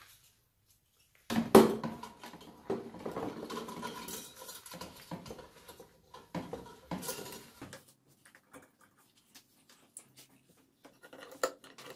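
Handling noise from a rusty metal hurricane lantern, wired to a wooden board, being set into a plastic tub by gloved hands: a sharp knock about a second and a half in, then clattering, rubbing and rustling for several seconds, dying down to scattered small clicks.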